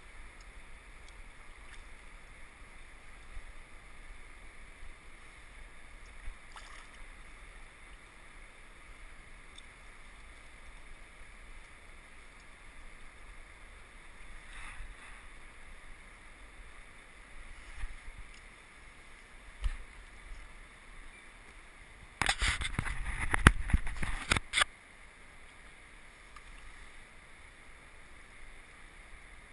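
Steady low wash of river water and wind. A few soft thumps come first, then, about three-quarters through, a loud burst of splashing lasting a couple of seconds from a trout held in the shallows.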